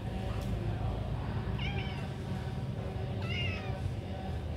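An orange tabby cat meowing twice, two short calls about a second and a half apart, over a steady low background hum.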